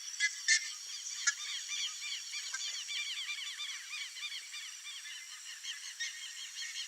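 Buff-necked ibises calling: loud honking notes repeated rapidly and overlapping, as from several birds at once, with a few sharper, louder notes in the first second and a half.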